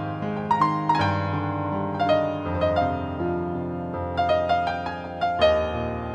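Solo digital piano playing a slow, romantic melody over held bass notes and chords. There is a quicker run of notes about four seconds in.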